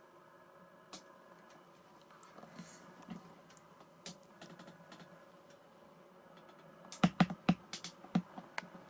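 Scattered light clicks and taps from hands handling and fitting the plastic and foam parts of an RC model plane, with a quick run of louder clicks about seven seconds in.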